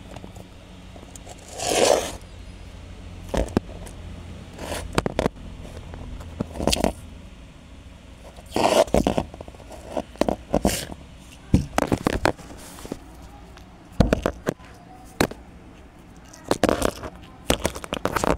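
A rock being scraped and handled close to the microphone: irregular short scrapes and crunches, a dozen or so, with pauses between them.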